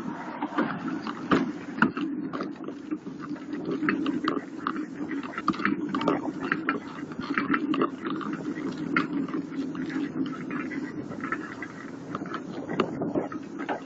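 Bicycle rolling over an asphalt path, heard from a camera mounted on the bike: a steady rumble of tyres on the surface with frequent rattling clicks from the bike and its mount.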